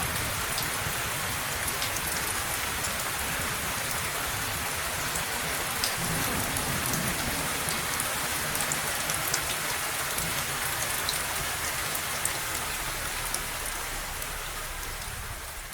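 Steady rain falling, a dense even hiss with scattered drop ticks, fading away near the end.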